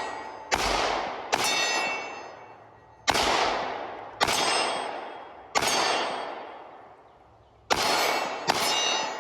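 Smith & Wesson M&P 2.0 pistol firing about eight shots at uneven intervals, a second or two apart. Each shot trails off in a long ringing decay.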